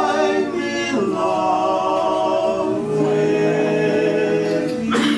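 Male barbershop quartet singing a cappella in close four-part harmony, holding long chords that shift about a second in and again near the end.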